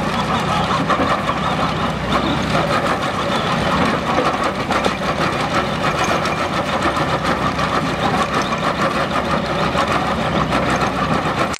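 MB R900 hydraulic drum cutter on an excavator grinding a tree stump: a steady, rapid, rattling grind of the cutting teeth chipping wood, over the excavator's running diesel engine.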